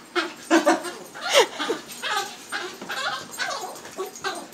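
Small black dog yipping and whining in short, repeated cries with quick rises and falls in pitch.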